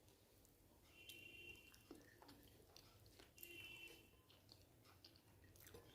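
Faint close-up chewing and lip smacks of a person eating a meal, with scattered small mouth clicks. Two brief faint high-pitched tones sound about a second in and again about three seconds in.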